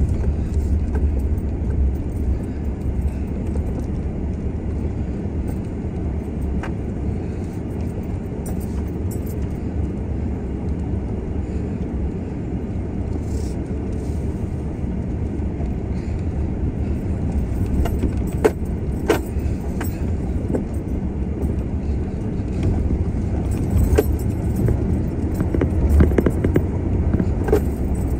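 Off-road vehicle driving slowly along a rough gravel forest track: a steady low rumble of engine and tyres, with scattered sharp clicks and rattles, more of them in the second half.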